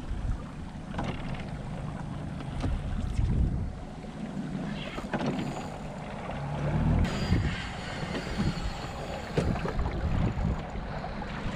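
Wind on the microphone and water lapping and slapping against the hull of a small flats skiff, with scattered knocks and splashes.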